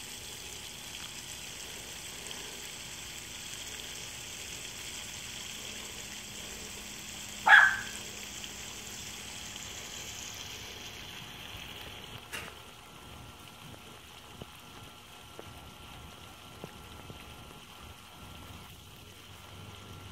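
A single short, loud yelp from a small dog about seven seconds in, over a steady hiss that fades away a little past the middle.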